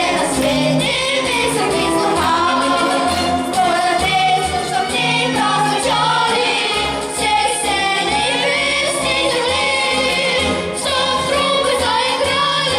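Several voices singing a melody together, choir-style, over instrumental accompaniment with a steady bass line.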